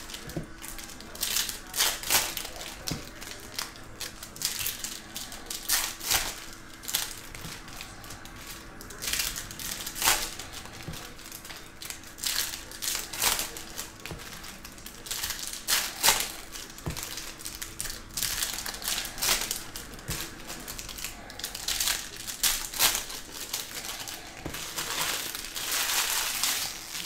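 Foil wrappers of Bowman Chrome baseball card packs crinkling and crackling as they are opened, with cards being flipped through and squared into a stack. The sound comes in irregular sharp crackles, thickening into denser crinkling near the end.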